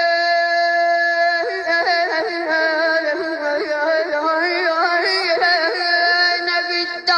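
A single high voice of a radood chanting unaccompanied: a long held note, then quick ornamented runs that wind up and down, with a brief break just before the end.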